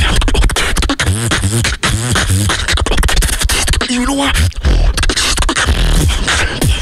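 Solo beatboxing into a handheld microphone: a fast, dense pattern of deep kick-drum thumps with snare and hi-hat clicks, wobbling pitched bass sounds a couple of seconds in, and a short held pitched note about four seconds in.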